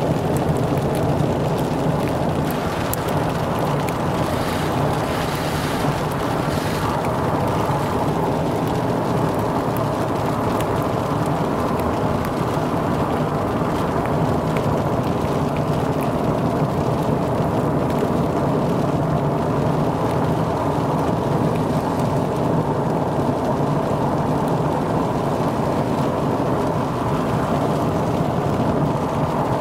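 Steady road and engine noise from a moving vehicle, heard inside the cabin.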